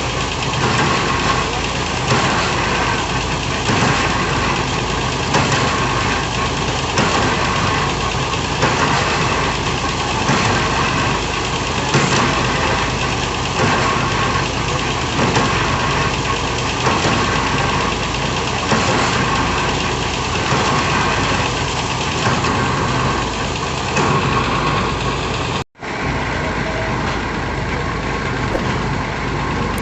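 Heavy diesel engine of a hydraulic piling rig running steadily under load, with a regular pulsing about once a second. The sound cuts out for an instant near the end, then carries on.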